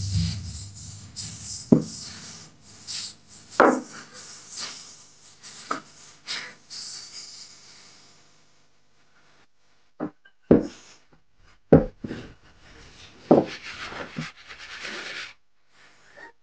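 Wooden rolling pin rolling out a sheet of pizza dough on a pastry mat: a continuous rubbing, scraping sound with occasional knocks as it goes back and forth. After a lull, the dough sheet is handled and smoothed on the table, with three sharp knocks and a brief rustle.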